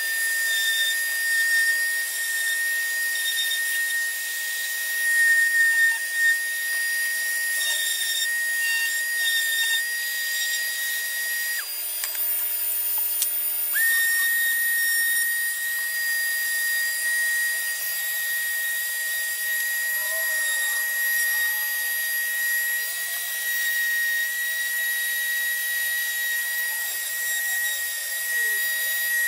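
Electric random orbital sander with a shop vac drawing dust from it, running with a steady high whine as it sands the epoxy-and-fiberglass skin of a 3D-printed hydrofoil. The whine breaks off for about two seconds near the middle, then starts again.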